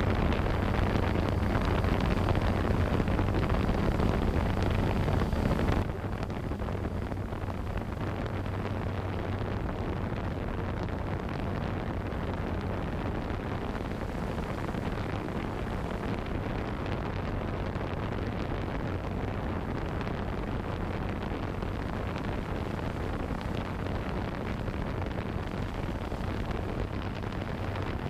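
A drone's motors and propellers running in flight, heard from the camera mounted on it: a steady low hum mixed with a rush of air. About six seconds in the hum fades and the sound drops to a quieter, even rush.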